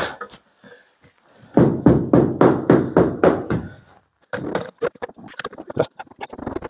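Knock-on rubber edge trim being knocked onto the pinch weld of a cut-out van body panel. A sharp knock comes first, then a run of rapid thumps, about four a second, for two and a half seconds, then lighter irregular taps and clicks.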